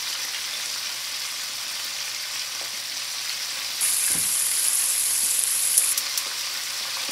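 Chicken wings deep-frying in hot oil: a steady, dense sizzle of bubbling grease. It swells a little louder for about two seconds, starting about four seconds in, with a faint low bump.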